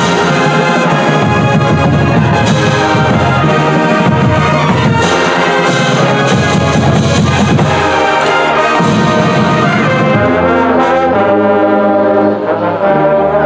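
Brass-led band music with percussion hits, which drop out after about ten seconds, leaving long held brass chords.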